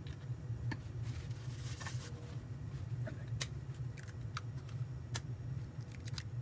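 Eggs being cracked and the shells pulled apart over a frying pan, heard as scattered light clicks and taps over a steady low hum.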